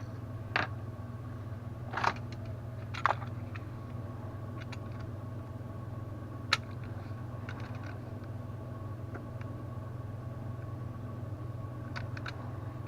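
Scattered sharp clicks and light ticks of a plastic power bank casing being handled and pried at to open it, over a steady low hum.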